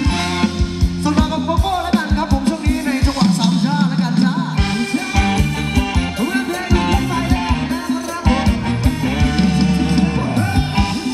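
Live Thai ramwong dance band playing over a PA system: a singer's voice over a steady drum beat, bass and guitar.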